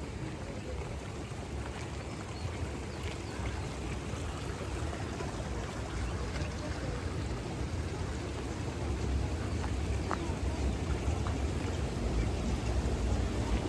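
Steady rushing water of a mountain stream or waterfall, a deep, even noise that grows gradually louder toward the end.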